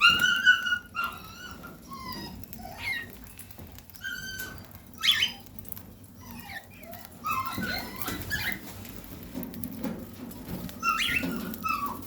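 Cockatiel calling: a string of short whistled chirps and squawks that glide up and down in pitch, with a loud drawn-out note at the start and louder bursts of chatter around the middle and near the end.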